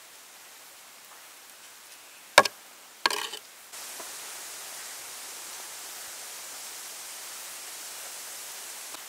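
Kitchen handling sounds: one sharp knock about two seconds in, then a short clatter of clicks, after which a steady hiss sets in.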